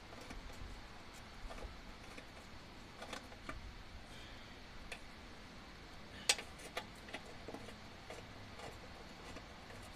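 Scattered light clicks and taps of hands handling wires and small parts in an engine bay, the sharpest about six seconds in.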